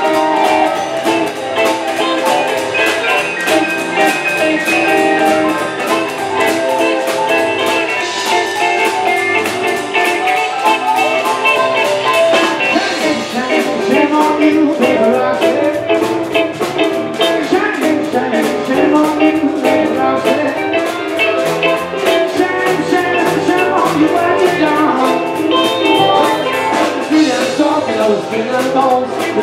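Live band music with a steady beat: a Telecaster-style electric guitar, a plucked upright double bass and a drum kit, with a singer's voice at times.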